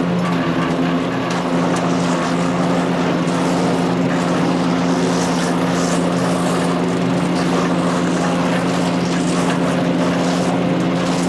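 Power King wood chipper shredder running steadily, its Kohler CH440 single-cylinder engine held at a constant speed. A rougher, higher rasp comes and goes on top, loudest around five to seven seconds in.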